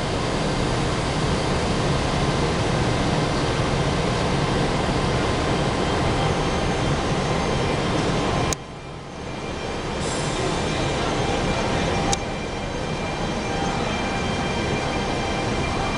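FS Class E.464 electric locomotive at the rear of a push-pull train, its equipment running steadily as the train starts pulling away. About eight and a half seconds in a sharp click cuts the sound down briefly before it builds back up, and another click comes about twelve seconds in.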